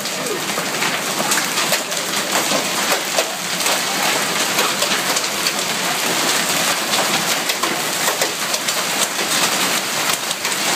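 Hail and heavy rain pelting wet pavement: a steady hiss of rain, dotted with many sharp ticks of hailstones striking.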